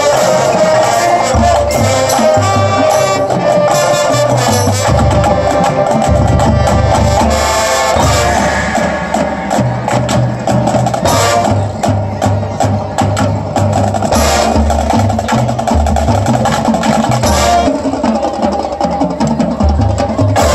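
A high school marching band playing its field show: sustained brass and woodwind notes over a moving bass line, with drums and tapping percussion. The percussion becomes more clipped and rhythmic about halfway through.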